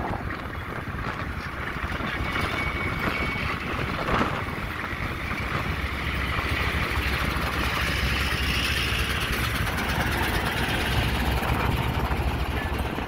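Diesel-electric locomotive running under power as it pulls a goods train away, passing close by, followed by its coaches rolling past with a steady low rumble of wheels on the rails. A single clank about four seconds in.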